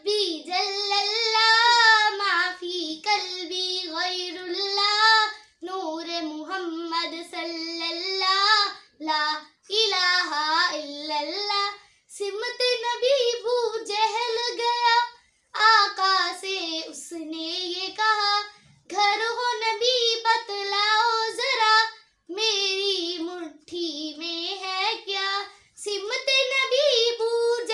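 A girl singing a naat solo and unaccompanied, in phrases a few seconds long with short breaks for breath between them.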